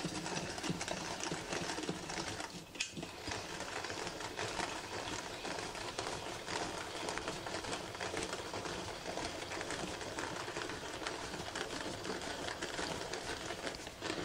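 Hand-cranked rotary mixer churning thick hung curd in a stainless steel bowl, its crank and beater clicking in a rapid, steady clatter. It pauses briefly a little under three seconds in.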